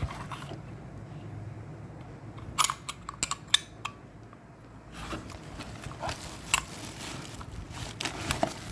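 Small spare parts being handled by hand: light clicks and clinks, a quick cluster of them about two and a half seconds in and scattered ones later, over a low steady hum.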